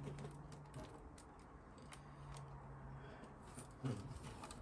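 Faint small clicks and taps of plastic model-kit parts being handled and pressed into place, over a low steady hum that stops and starts. A brief louder sound comes near the end.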